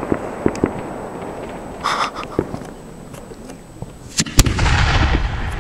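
A few scattered sharp pops as the last stars of a firework shell die away. About four seconds in, a sharp bang as the lift charge fires the next aerial shell from the ground, followed by a low rumbling echo.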